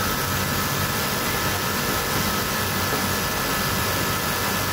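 Brother twin-needle industrial lockstitch sewing machine running steadily at speed, stitching a topstitch along a fabric band, with a steady high whine over a continuous rattling hiss.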